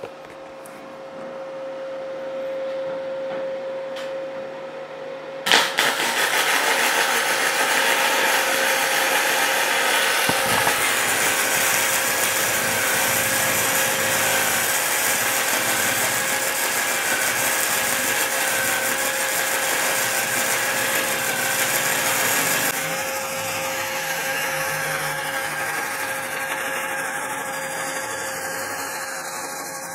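MIG welding arc running a long continuous bead on 6 mm plate at about 80–100 A. It strikes with a click about five seconds in, then runs as a steady, dense hiss that holds stable, dropping slightly in level after about 23 s. A steady hum from the welding machine sits under it.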